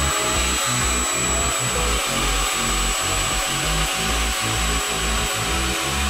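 Background electronic music with a pulsing bass line, over a steady high hiss.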